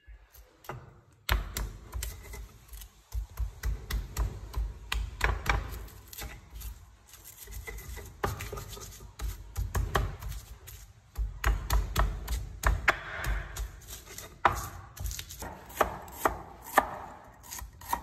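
Stone pestle pounding and grinding red chilies and garlic with salt in a stone mortar (cobek): repeated dull knocks and crushing scrapes, a few a second, starting about a second in.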